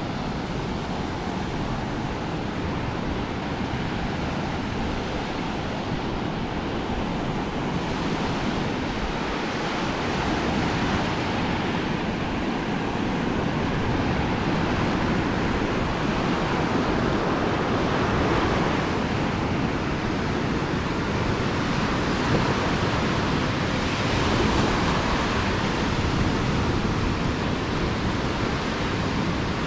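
Ocean surf rolling and washing onto a beach: a steady rush of noise that swells a little with the larger waves.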